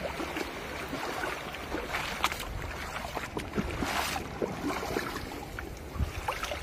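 Shallow seawater splashing and sloshing irregularly as someone wades out and pulls a round collapsible net crab trap through the water, lifting it out near the end.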